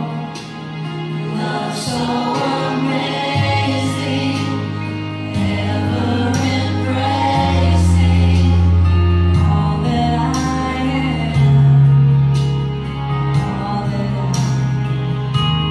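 A Christian children's song: a woman's voice singing into a microphone with other voices joining in, over an accompaniment of sustained bass notes that shift every second or two and regular percussion.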